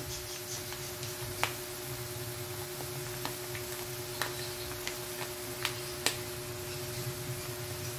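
Steady low hum with a faint steady tone, broken by a few light clicks and crinkles from a plastic oyster-sauce sachet being squeezed out over a wok.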